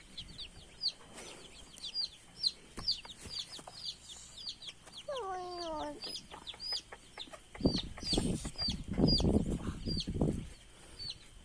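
Baby chicks peeping: a steady run of short, high, falling peeps, about two or three a second. About five seconds in comes a single lower, drawn-out falling call, and from about seven and a half seconds a louder stretch of rustling and thumps for about three seconds.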